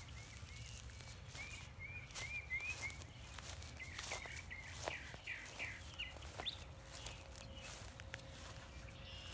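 A bird calling in runs of short, quick, arched chirps, with footsteps and rustling through dry grass.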